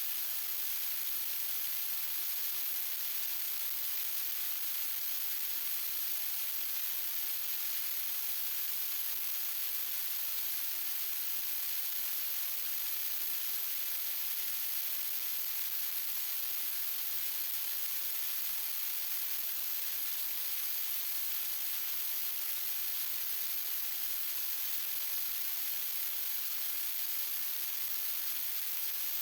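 Steady hiss of static noise, strongest in the high pitches, with no change and no other sound in it.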